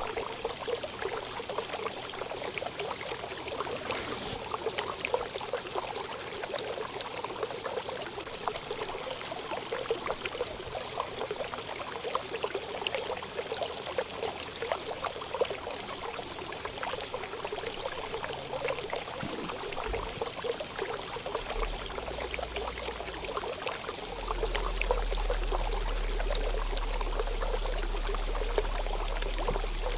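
Steady running, trickling water. A low steady hum joins in about 24 seconds in.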